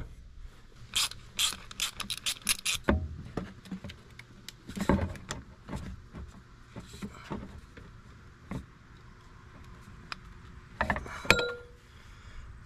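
Metal-and-rubber clicks and knocks from a car's intercooler pipe, with its rubber couplers and hose clamps, being twisted and worked loose by hand in the engine bay. A quick run of clicks comes about a second in, then scattered knocks.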